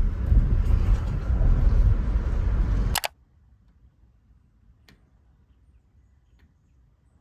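Loud, gusty low rumble that cuts off with a sharp click about three seconds in, followed by near silence with a few faint ticks.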